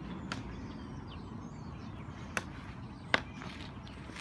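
Three sharp clicks over a steady low rumble; the third, about three seconds in, is the loudest.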